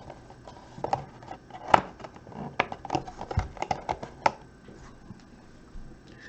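A run of light, irregular clicks and taps from a computer keyboard and mouse, fading after about four seconds.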